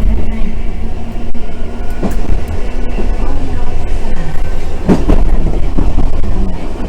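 Randen streetcar running on the Arashiyama Line, heard from inside the car: a steady low rumble with occasional sharp knocks from the wheels, several close together about five seconds in.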